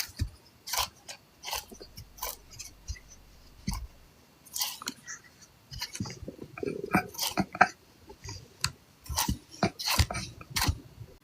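A hungry person's stomach gurgling close to the microphone: irregular pops and crackles with a low rumble about two seconds in.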